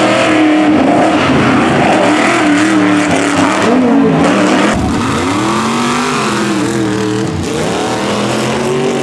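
Ford Bronco tuff truck's engine revving hard, its pitch swooping up and down again and again as the throttle is worked through a tough-truck obstacle run. A thump lands about halfway through.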